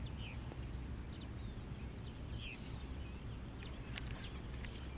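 Quiet outdoor lakeside ambience: a steady low background with a few faint short bird chirps and some light clicks near the end.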